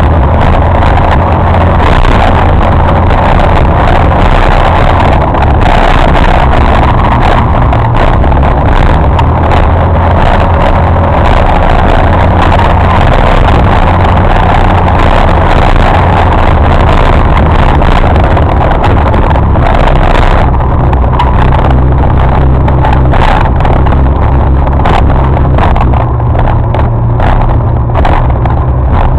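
Motorcycle riding at steady road speed: a constant, loud engine drone mixed with heavy wind rush on the microphone. The upper hiss thins out about two-thirds of the way through.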